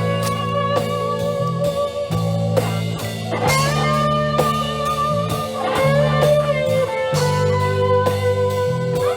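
Live rock band playing an instrumental passage: electric guitar holds and bends lead notes over a steady bass line and a drum beat.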